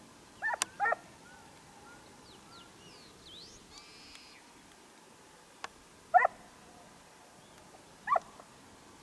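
Hunting dogs barking while working a hare's scent trail: two quick barks about half a second in, another about six seconds in and one more near the end.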